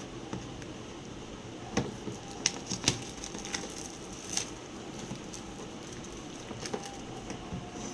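Scattered clicks, taps and crackles of a router box and its packaging being handled, over a steady low room hiss; the sharpest clicks come in a cluster in the first half.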